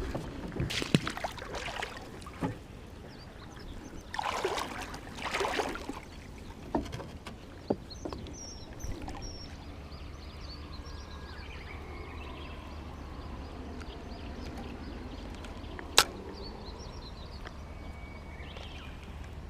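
Water swishing and sloshing around a small float boat on a river, with two longer swishes about four and five seconds in. A steady low rumble follows, with one sharp click near the end.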